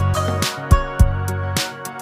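Background music: a steady beat with drum hits about twice a second under sustained instrumental notes.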